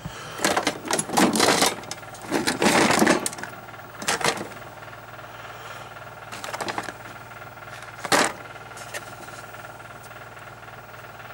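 Computer expansion cards and parts rattling and clattering as they are rummaged through by hand in a box, in several short bursts during the first few seconds and a sharper knock about eight seconds in.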